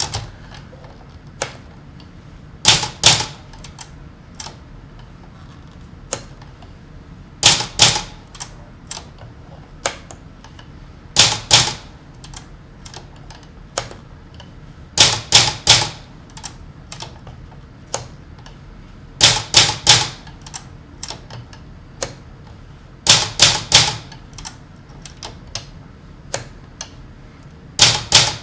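Manual typewriter keys striking the paper in a slow, sparse rhythm: clusters of two or three sharp strikes about every four seconds, with fainter single clicks in between.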